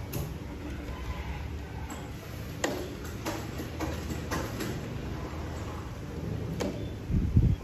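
Low rumble of wind on the microphone, with a few light clicks through the middle and a louder low buffet near the end.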